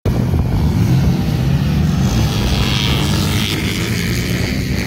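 ATV engines running in a loud, steady drone.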